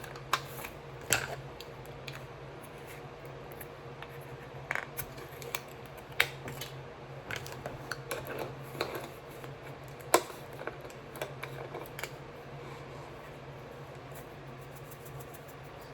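Scattered light clicks and taps of spice containers being opened and handled while seasoning raw steak, over a steady low hum.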